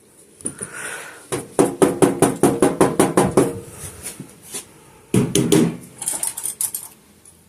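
Rapid metallic rattling and knocking inside a sheet-metal furnace flue pipe, about six or seven knocks a second for two seconds, then a shorter burst about five seconds in, as something stirs inside the pipe.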